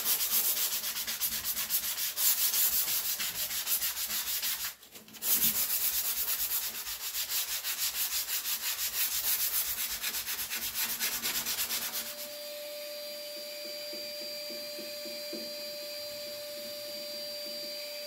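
120-grit sandpaper rubbed by hand along the edge of a fiberglassed epoxy deck panel, in rapid back-and-forth strokes with a short pause about five seconds in. About twelve seconds in, the strokes give way to a vacuum running steadily with a thin whine, sucking up the sanding dust.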